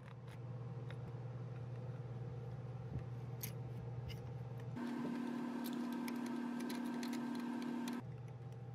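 Light metallic clicks and ticks of a spark plug socket and extension as a new spark plug is lowered into the plug tube and threaded in by hand. A steady low hum sits underneath and shifts abruptly to a higher hum about five seconds in.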